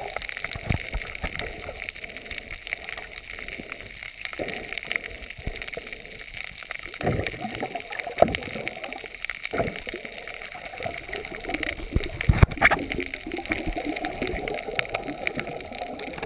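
Water gurgling and sloshing close around the camera, with scattered small knocks and splashes and one sharper knock about twelve seconds in.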